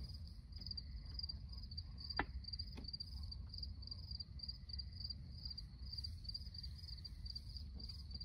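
Crickets chirping steadily in the dark, a high pulsing chirp about three times a second. Two sharp clicks come a little after two seconds in.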